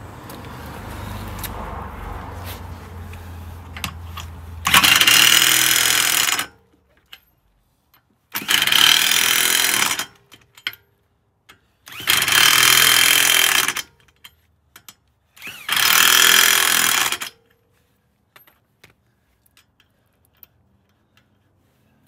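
Corded electric impact wrench hammering on wheel lug nuts in four separate bursts of about two seconds each, one nut at a time, after a low steady hum in the first few seconds.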